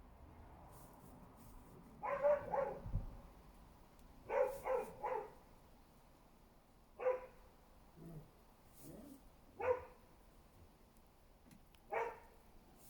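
A dog barking in short calls: two in quick succession, then a group of three, then single barks spaced a few seconds apart, with a couple of fainter, lower sounds between them.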